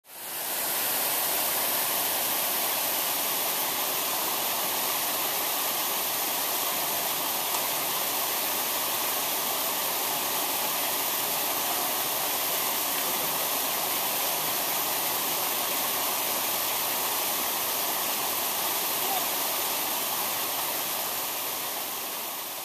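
A steady, even rushing noise, like water pouring or static hiss, with no voice or tune in it. It fades in over about the first second and tapers off near the end.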